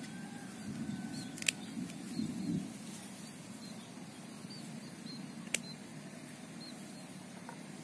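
Faint outdoor background: a low rumble that dies away about two and a half seconds in, two sharp clicks about four seconds apart, and faint high chirps.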